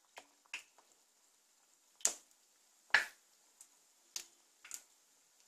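Hot oil popping and spitting in about seven sharp pops, loudest two and three seconds in, as samosas are lowered in and deep-fry over low heat.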